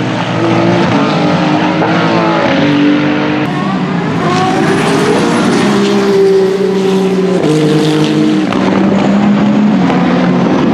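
Hypercar-class endurance racing prototypes' engines running at speed. The engine pitch holds steady, then steps to a new pitch several times as the cars change gear.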